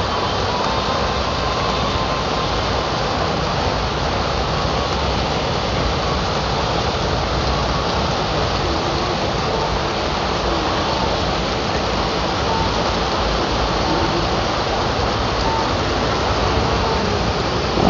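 Steady heavy rain pouring down in a continuous, even hiss, with a few faint short beeps now and then.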